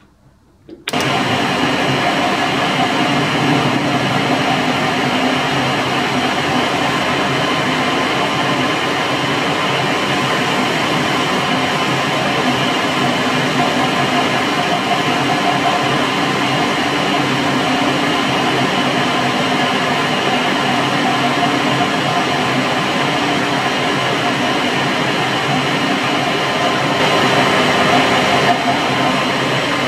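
Metal lathe running under power, a loud steady whir with a faint hum of tones through it, as the tool takes a facing cut across the end of a steel part. It starts abruptly about a second in and swells slightly near the end.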